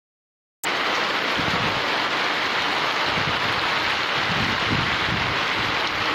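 Steady rain falling on a wet tiled rooftop terrace and potted plants. It cuts in abruptly about half a second in, after dead silence.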